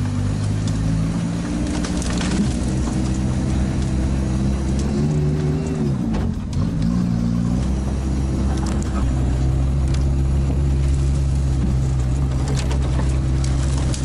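All-terrain vehicle's engine running under load, heard from inside its cab. The engine note rises briefly about five seconds in, falls away about a second later, then holds steady.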